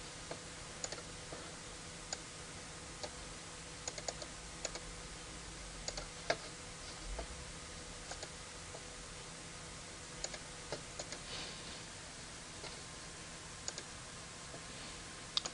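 Faint, irregular clicks of a computer mouse and keyboard as form fields are filled in and drop-down menus are picked, over a faint steady hum.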